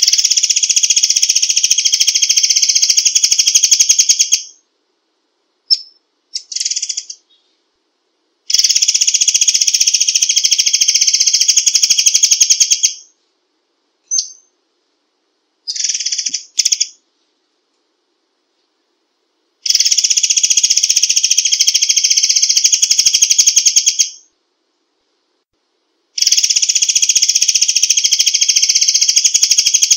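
Murai air songbird singing long, very fast, dense trills, each lasting about four seconds, four times over. Between them come a few short separate call notes.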